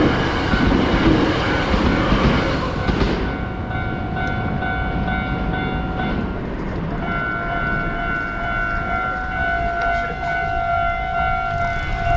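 A train passes over a Japanese level crossing with loud rumbling wheel noise that fades about three seconds in. The crossing's warning alarm keeps ringing with steady high tones, breaking off briefly near the middle and then resuming.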